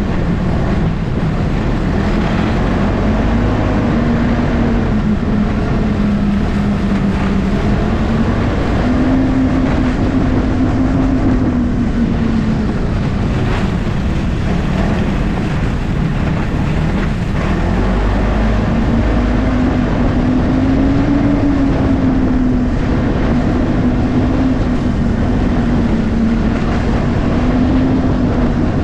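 Ski-Doo 600 ACE snowmobile's three-cylinder four-stroke engine running at trail speed, its drone drifting gently up and down in pitch as the throttle changes, over a steady rush of noise.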